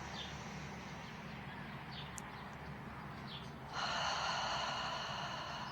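A person's audible breath out through the mouth, a breathy whoosh that starts suddenly near four seconds in and lasts about two seconds, with a few faint bird chirps before it.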